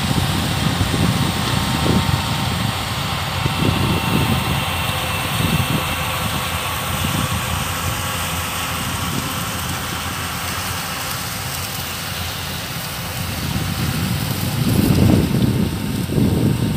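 Yanmar combine harvester running steadily as it cuts rice. Wind buffets the microphone in low gusts, strongest near the end.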